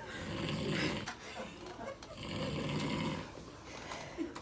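A person snoring loudly: two long, rough snores about two seconds apart.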